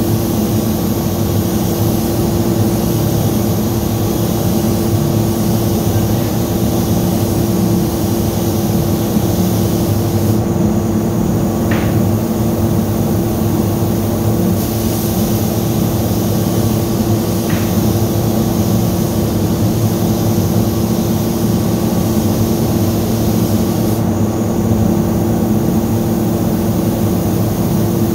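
Paint spray booth ventilation running steadily: an even rush of air with a steady low hum. The high hiss eases off twice for a few seconds.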